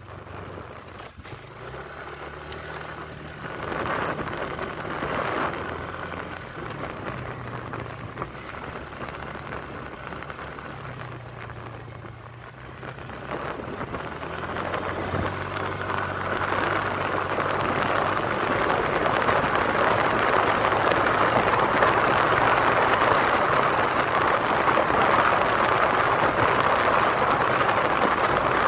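Motorcycle engine running, its low note shifting a few times, under rushing wind on the microphone that grows much louder about halfway through and stays loud.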